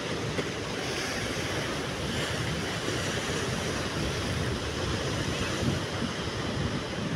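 Sea waves breaking and washing over a rocky shore as a steady surf roar, with wind buffeting the microphone.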